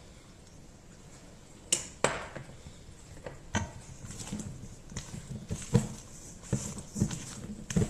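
Plastic spatula knocking and scraping against a stainless-steel mixing bowl as thick batter is folded. Two sharp knocks come a little under two seconds in, then irregular scrapes and thuds.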